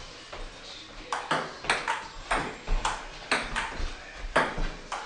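Table tennis rally: the celluloid ball clicking back and forth, struck by paddles and bouncing on the table, about three hits a second, starting about a second in.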